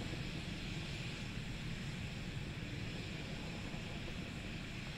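Steady, low rumble of a Soyuz-2.1a rocket's engines heard from the ground as the rocket climbs away.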